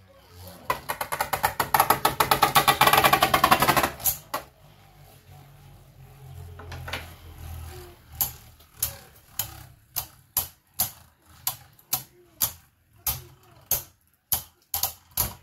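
Two Beyblade Burst spinning tops, Archer Hercules and Doomsizer, clashing in a plastic stadium. A fast clattering run of hits lasts for the first few seconds, then after a quieter stretch come single sharp clacks about twice a second as the tops knock together.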